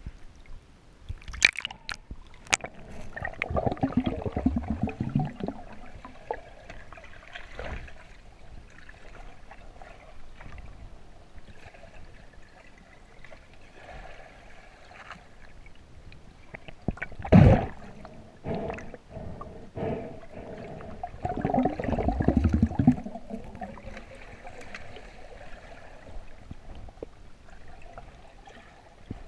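Underwater water noise around a camera housing as a freediver swims: gurgling and sloshing, with a few sharp clicks near the start, louder bubbling rushes a few seconds in and again about two-thirds through, and one sharp knock just before that second rush.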